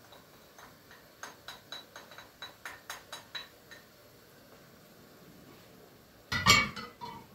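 Metal kitchen utensil clinking lightly against a cooking pot, about a dozen quick ringing taps a few a second, then one louder clatter of cookware being knocked or set down near the end.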